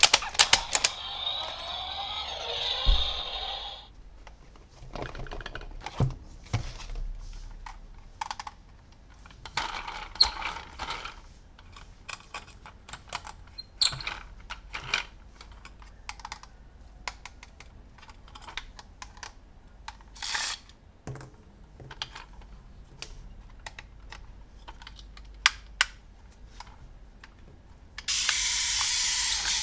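Hard plastic toy pieces and packaging being handled: irregular clicks and taps throughout, with a dense crinkling rustle over the first few seconds. A sudden steady hiss starts near the end.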